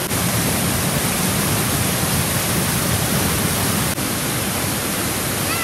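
Waterfall: the steady, even rush of water cascading over rocks into a stream pool.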